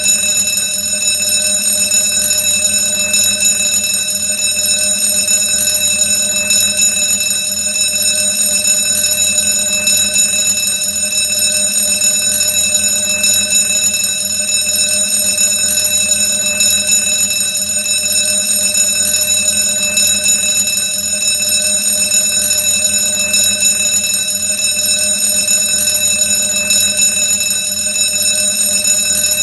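Old-fashioned alarm bell ringing loudly and without a break, a steady metallic ring with many overtones.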